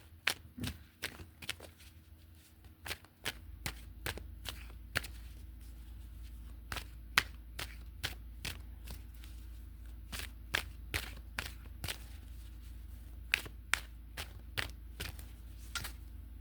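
Tarot cards being shuffled by hand: a long run of crisp, irregular card snaps and flicks. A steady low hum sits underneath and grows stronger about three seconds in.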